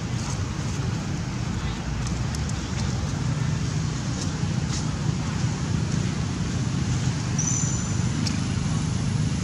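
Steady low rumble of road traffic with indistinct voices in the background, a few light clicks, and a brief high chirp about three-quarters of the way through.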